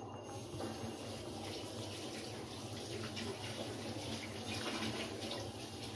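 Potol dolma gravy simmering in a kadai on a gas stove, a steady bubbling hiss, while the stuffed pointed gourds are turned in it with a silicone spatula.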